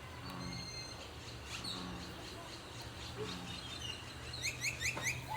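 Small bird chirping outdoors, ending in a quick run of about five short descending notes near the end, over a steady low background hum.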